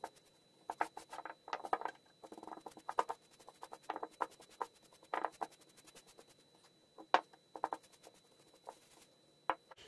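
Wide bristle paintbrush stroking and dabbing liquid wood dye onto a scorched wooden block: a quiet run of short, irregular scratchy brushing sounds.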